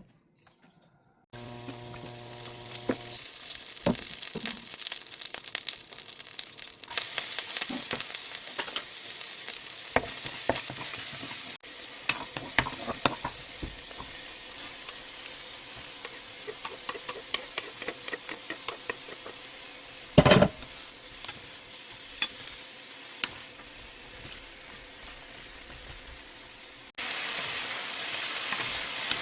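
Food stir-frying in an oiled frying pan: steady sizzling with frequent small clicks and scrapes of a spatula stirring, and one loud knock about two-thirds of the way through. It starts after a second of near silence.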